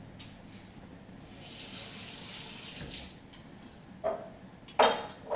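Kitchen tap running into the sink for about two seconds, then two sharp clattering knocks of things handled in the sink, under a second apart, the second louder.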